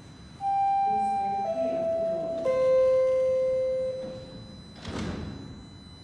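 Bombardier Toronto Rocket subway train's door-closing chime: three tones stepping down in pitch, the last held longest. About five seconds in the doors slide shut with a short thump.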